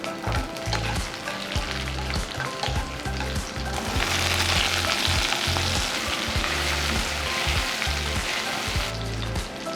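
Food sizzling in a hot pan as it is stir-fried, with the clicks and scrapes of a spatula stirring it. The sizzle swells louder about four seconds in and eases off near the end.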